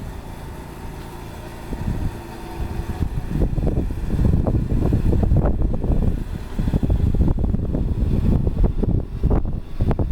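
Hurricane wind gusting and buffeting the microphone: a low rumble that turns louder and more gusty about three seconds in.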